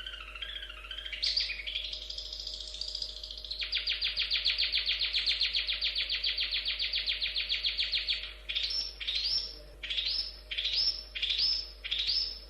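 Long-tailed shrike (cendet) singing: a varied warble, then a long fast trill of rapidly repeated notes from about four to eight seconds in, then a string of separate rising, sweeping notes about every half second.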